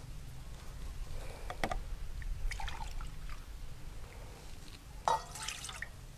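Faint dripping and splashing of milk, with light clicks of a plastic measuring jug and other kitchenware being handled. A short pitched sound comes about five seconds in.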